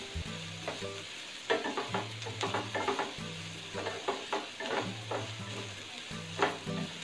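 Chopped vegetables sizzling in hot oil in a frying pan on full flame while a wooden spatula stirs and tosses them. The spatula's scrapes and knocks against the pan come several times.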